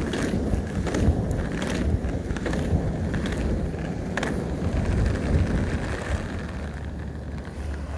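Quad roller skate wheels rolling over pavement: a steady rumble with a few sharp clicks and knocks along the way, fading near the end.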